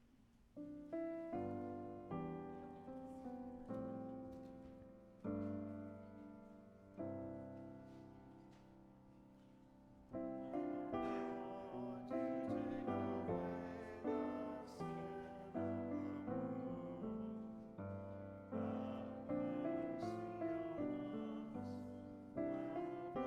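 Piano playing a slow, quiet hymn-like piece: single chords that ring and fade, then fuller, more frequent chords from about ten seconds in.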